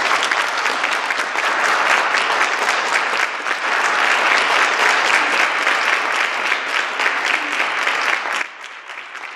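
Audience applauding, a dense patter of many hands clapping that cuts off abruptly near the end, leaving a much fainter sound.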